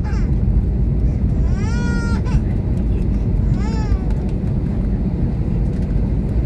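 Airbus A319 cabin noise during the landing rollout: a loud, steady low rumble from the airliner braking down the runway with its spoilers raised. A baby cries over it twice, short wails that rise and fall, about two and four seconds in.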